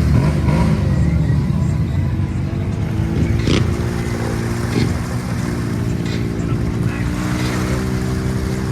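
Off-road vehicle engine running steadily at low revs, with a few sharp knocks midway.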